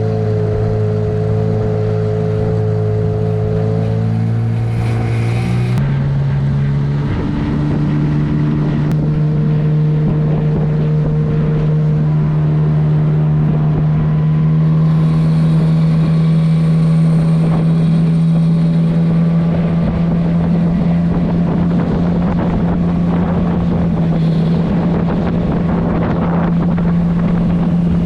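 Nissan Tohatsu 8 hp outboard motor running steadily, its engine note stepping up to a higher, steady speed about six to seven seconds in as the throttle is opened.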